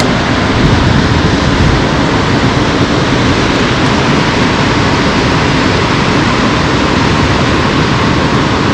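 Steady, loud rush of water pouring out below a dam, an even roar with no breaks.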